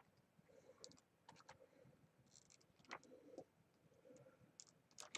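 Faint scattered clicks of small plastic keyboard parts being handled, with a sharper click about three seconds in and another near the end, as a connector is tried on the keyboard's circuit board.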